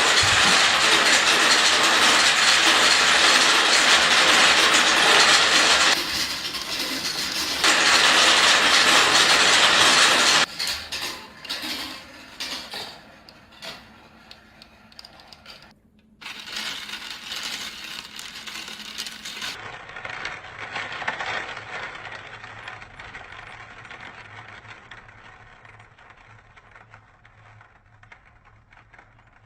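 Many balls clattering down a plastic marble-run track with water running: a dense, loud rattle for about ten seconds that thins to scattered clicks, then after a brief break a softer rattle that slowly fades.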